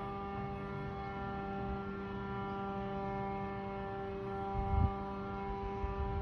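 A steady, unwavering pitched drone with many overtones over a low rumble, with a couple of low thumps about four and a half seconds in and again near the end.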